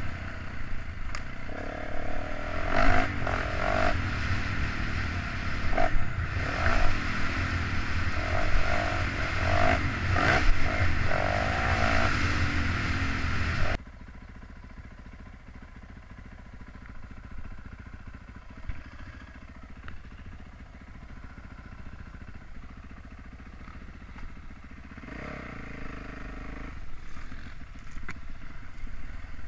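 Yamaha YZ450F four-stroke dirt bike engine revving up and down under throttle, with clatter and knocks from the bike over rough trail. About 14 seconds in the sound drops suddenly to a much quieter, low, steady engine sound, and it picks up again with revving near the end.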